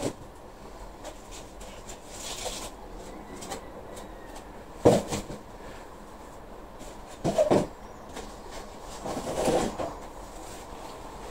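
Hands handling plastic tubs and pots on a potting bench: a sharp knock about five seconds in, a quick double knock a couple of seconds later and a short rattling clatter near the end, with faint rustling between.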